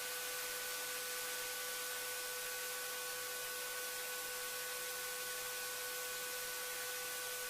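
Steady hiss of an open aircraft intercom channel, with a thin steady hum tone under it.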